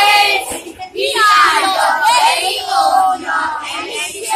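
A group of children singing together in unison, loudly, with a brief break about a second in.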